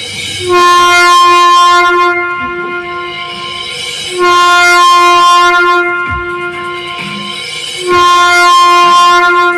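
Train-horn sound effect played loud through a DJ sound system during a sound check: three long, steady blasts about a second and a half each, with a deep falling bass sweep between the second and third.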